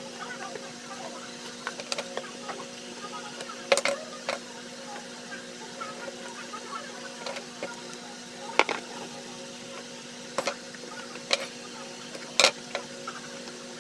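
Cardboard pieces and masking tape being handled and pressed together: scattered sharp taps and rustles, the loudest about a third of the way in, near the middle and near the end, over a steady low hum.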